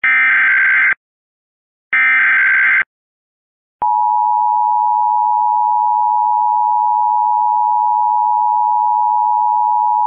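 US Emergency Alert System broadcast tones. First come two bursts of the SAME digital header data, each just under a second long and a second apart, encoding a Civil Emergency Message. About four seconds in, the steady two-tone EAS attention signal (853 and 960 Hz) begins and holds.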